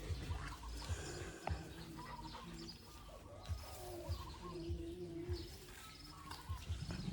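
Birds chirping and calling in short, scattered phrases, with a lower wavering call near the middle and a few soft low knocks.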